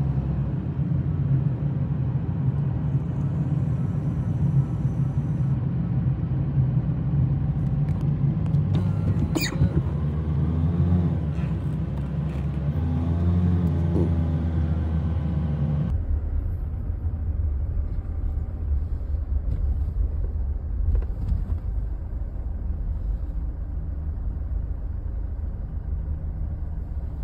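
Car driving slowly, heard from inside the cabin: a steady low rumble of engine and tyres on the road. About halfway through, the higher hiss drops away and only the low rumble remains.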